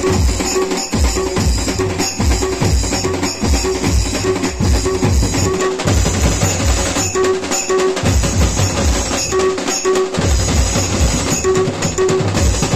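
Loud music with a heavy, fast bass-drum beat and a short note repeating over it.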